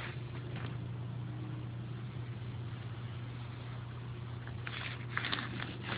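A steady low hum over a faint hiss, with a few light clicks and rustles about five seconds in.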